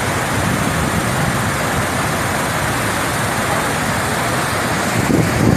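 Floodwater pouring over a dam's overflow weir: a loud, steady rush of water.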